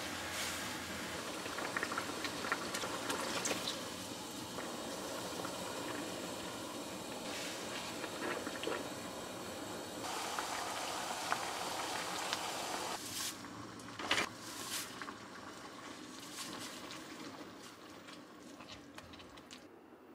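Soy-sauce tsuyu broth with leeks, onions and mushrooms simmering in a stainless steel pan, a steady crackling bubble and fizz. A few sharp knocks come about two-thirds of the way in, and the bubbling grows fainter near the end.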